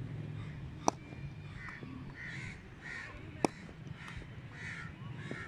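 Crows cawing, a run of short caws roughly every half second from about a second and a half in. Twice a sharp crack cuts through, the loudest thing heard, typical of a cricket bat striking the ball.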